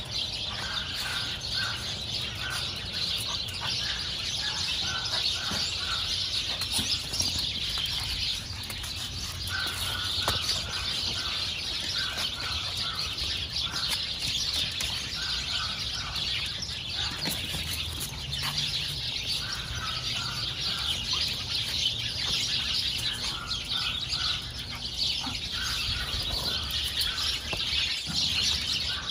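Birds chirping: a dense, continuous chorus of high chirps, with a short call repeated in quick little runs of notes again and again.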